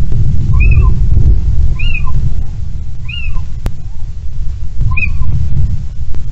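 Little owl giving four short mewing calls, each rising and then falling in pitch, the last after a longer pause. A strong low rumble of hard wind on the microphone runs under them.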